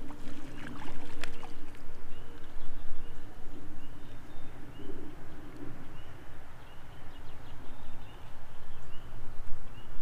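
Outdoor creekside ambience: wind buffeting the microphone as a low rumble that rises and falls, with a small bird's short, high chirp repeated every half second or so.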